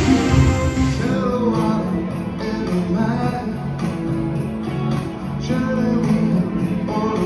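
Live music: a song cuts off about a second in, and a singer performs into a microphone over instrumental accompaniment.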